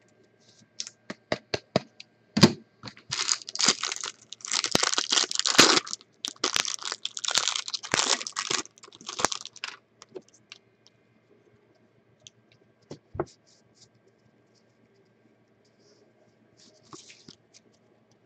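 A foil trading-card pack wrapper being torn open and crinkled for several seconds, with scattered light clicks of card handling before and after.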